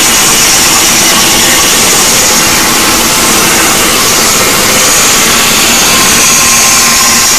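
A 12-volt car-audio speaker wall playing at extreme volume, so loud that the phone microphone clips and turns it into a steady, harsh, distorted noise.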